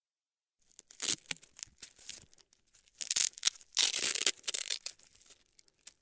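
Velcro hook-and-loop tape being ripped apart in a series of separate pulls of varying length, starting just under a second in. The loudest and longest rips come about three and four seconds in.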